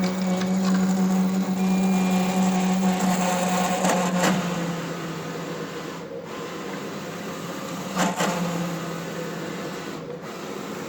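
Roland VersaCAMM wide-format printer's motor running with a loud, steady hum that drops in level about four seconds in, with sharp knocks about four and eight seconds in. This is the loud noise that comes with the printer's motor error 0080.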